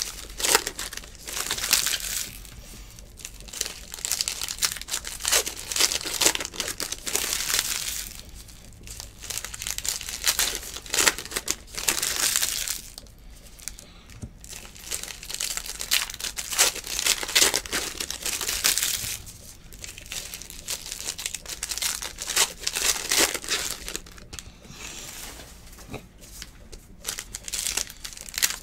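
Foil wrappers of trading-card packs crinkling and tearing as the packs are ripped open by hand, in repeated bursts with short pauses between.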